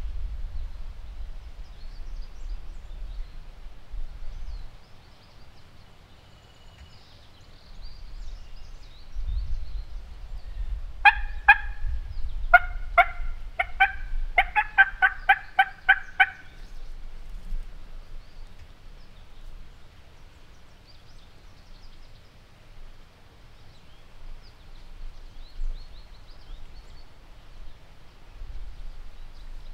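A run of turkey yelps: a few spaced notes that speed up into a fast, loud series and then stop.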